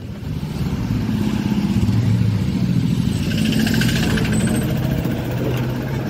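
A motor vehicle engine running close by, a steady low hum that swells in just after the start and holds.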